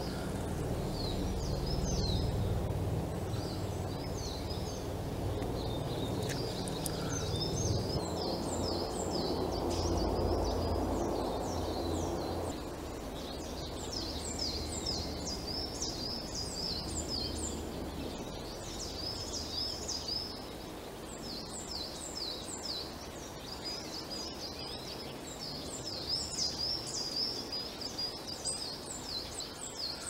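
Small woodland songbirds calling in many quick, high, downward-sweeping notes, sparse at first and dense from about halfway, over a low rumble that eases off near the middle.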